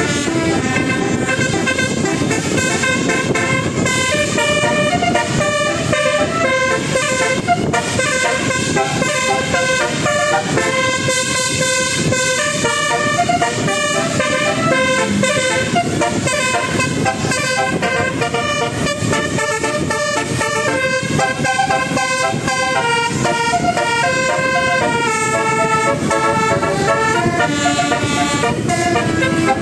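Bus telolet horn, a multi-tone musical horn, playing a tune: note after note in steps, continuous and loud, over a steady low rumble of noise.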